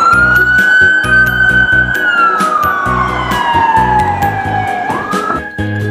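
Toy police car's siren wailing: the pitch sweeps up quickly, holds, slides slowly down for about three seconds, then sweeps up again near the end. Background music with a steady beat runs underneath.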